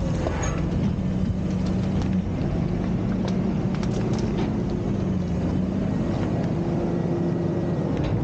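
Front-loader garbage truck's engine and hydraulics running steadily as the lift arms lower the emptied dumpster, with a few light knocks and rattles partway through.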